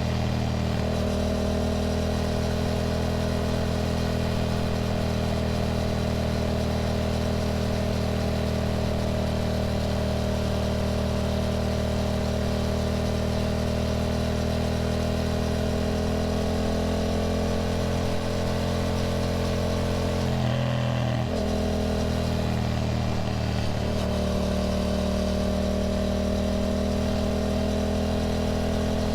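Yamaha motorcycle engine running at a steady, near-constant speed during a road ride. About two-thirds of the way through, the engine note breaks briefly and dips, then settles back.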